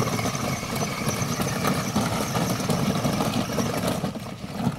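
Ride-on electric toy jeep driving through wet gravel and mud: a steady whine from its electric drive motors and gearboxes over the rough rumble of plastic wheels rolling on stones and mud, with scattered clicks and a knock near the end.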